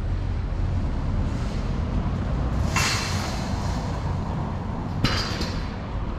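Busy street ambience with a steady low rumble. A loud burst of hiss comes about three seconds in, and a sharp click with a shorter hiss about five seconds in.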